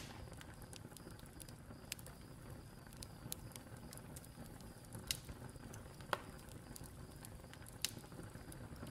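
Faint background ambience: a low steady hiss with scattered, irregular sharp clicks and pops.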